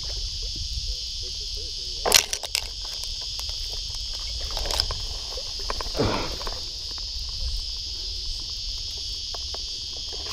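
A steady high-pitched insect chorus, with a cluster of sharp clicks and knocks about two seconds in and a brief swish about six seconds in.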